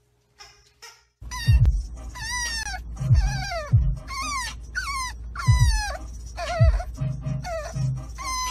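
French bulldog puppy whining over and over inside a moving car, starting about a second in. It gives a string of short, high cries, each falling in pitch, over the steady low rumble of the car's road noise.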